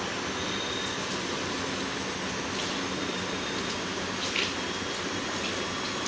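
IFB Senator Aqua SX front-load washing machine running, a steady rush of water inside it with a faint low hum.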